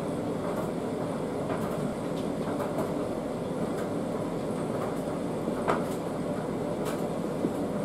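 Steady low rumbling background noise, with a few faint light clicks scattered through it.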